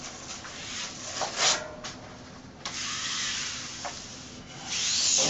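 Self-adhesive fabric wallcovering rubbing and rustling against the wall as it is held up and lined up, in a few short scratchy swishes, the loudest near the end.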